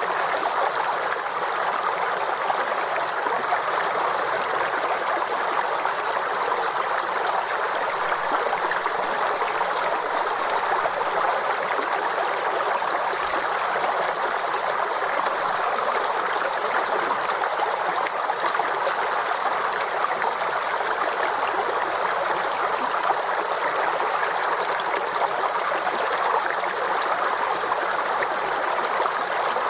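Forest stream flowing steadily, water running and gurgling over rocks.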